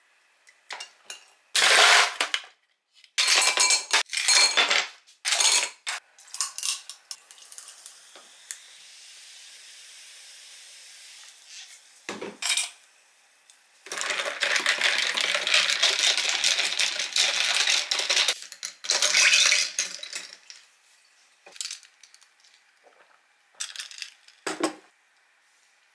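Ice and glassware clinking as lemonade is made in a stemless glass. Sparkling water is poured over ice and lemon syrup with a steady fizzing hiss, and there are two long runs of rapid clinking and rattling in the glass.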